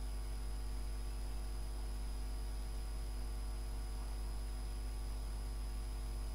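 Steady electrical mains hum with a buzz of many evenly spaced overtones, unchanging throughout: background hum picked up in the recording.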